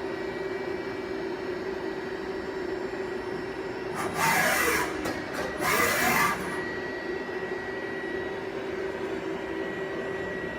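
2008 Okuma Heritage ES-L8II CNC lathe running its program with a steady hum. About four seconds in and again near six seconds there are two loud rushing bursts, each under a second long, with a whine that falls and then rises again.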